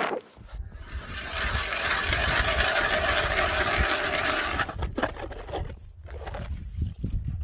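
Ice auger drilling through lake ice: a steady grinding scrape from about a second in until nearly five seconds, then a few scattered knocks, over a low rumble.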